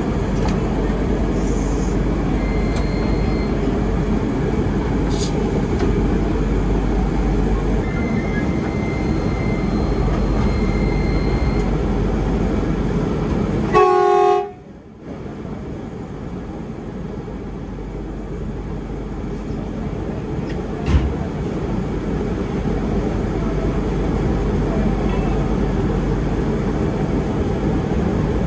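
Steady cabin noise inside a KRL electric commuter train, with a train horn sounding once for about a second about halfway through. Right after the horn the noise drops suddenly, then builds gradually as the train pulls away from the station.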